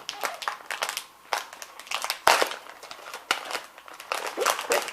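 Blind-bag packaging crinkling and crackling in the hands as it is handled and opened, in a run of irregular sharp crackles with a louder one about halfway through.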